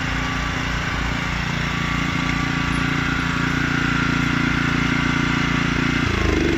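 Small petrol engine on an airless road marking machine running steadily, its pitch rising about six seconds in.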